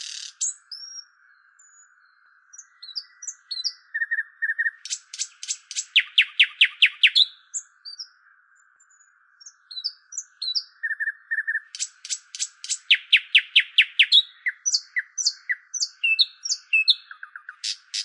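Nightingale singing: phrases of fast, evenly repeated notes alternate with short, high slurred whistles, with brief pauses between phrases.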